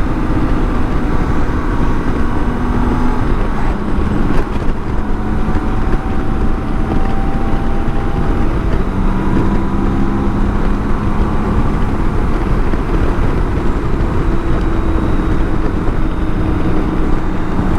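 BMW K1600 GTL's inline six-cylinder engine running under way, heard over a steady rush of road noise; its pitch drops a little about three seconds in and rises again around nine seconds. A single short knock about four seconds in.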